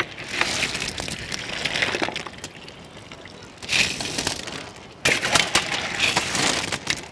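Boiled clam shells clattering and rattling as they are scooped out of a large metal cooking pot and tipped onto a pile. The clatter comes in three bursts, with a short lull in the middle.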